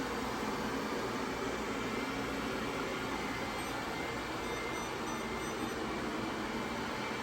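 XIEBro HR101 robot vacuum and mop running in mopping mode: a steady, even whir from its motors.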